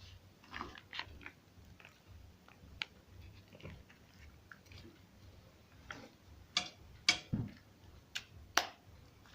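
Sticky, wet clicks and smacks of homemade glue-and-detergent slime being mixed, scattered irregularly, with a few louder smacks in the second half.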